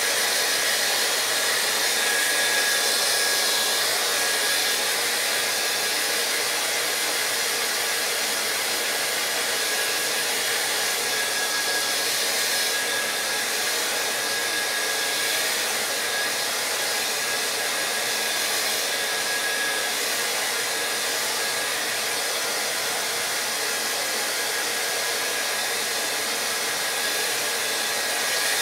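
Handheld hair dryer blowing steadily over wet watercolour paper to dry the paint: an even rush of air with a faint thin whine.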